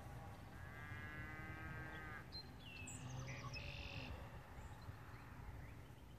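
Faint open-air ambience: low wind rumble on the microphone with faint bird chirps. About half a second in, a faint drawn-out whine-like call lasts about a second and a half.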